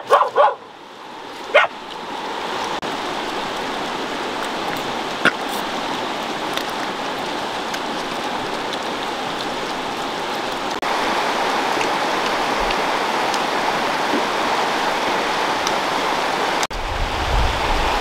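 A dog yips three times in the first two seconds. After that comes the steady rush of a flowing river, which turns louder and deeper near the end.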